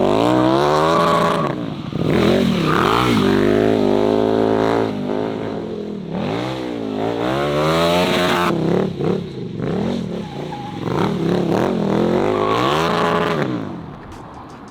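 KTM 1290 Super Duke R's 1301cc V-twin running through an Austin Racing full titanium exhaust, revving up and falling back again and again. It goes quieter near the end.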